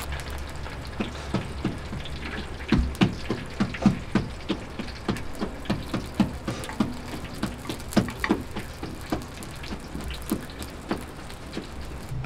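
Flatbread frying in hot oil in a large pan, a steady sizzle broken by many irregular sharp pops and crackles. Oil is ladled over the bread. The pops start about a second in and are thickest in the middle.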